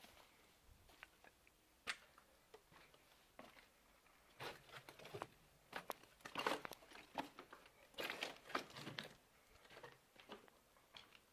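Footsteps scuffing and crunching on grit and broken brick on a concrete floor. Irregular crunches and scrapes grow busier in the middle few seconds.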